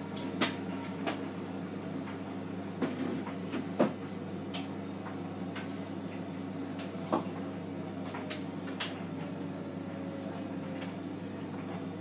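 Hotpoint NSWM 843C inverter-motor washing machine tumbling a full load in its wash cycle: a steady low hum with water swishing. Half a dozen sharp clicks and knocks come as the load turns in the drum.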